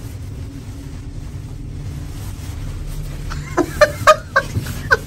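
Steady low hum of a moving passenger elevator. Near the end come several short bursts of women's laughter and brief vocal sounds.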